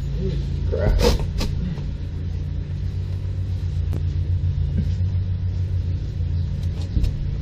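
Gloved hands pulling and scraping old foam and debris from under a boat's dash, with a couple of sharp knocks about a second in, over a steady low rumble and hum.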